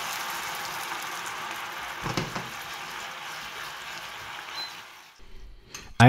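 Frying pan of onions in bacon fat sizzling steadily after being deglazed with a ladle of pasta water, with a single knock about two seconds in; the sizzle dies away near the end.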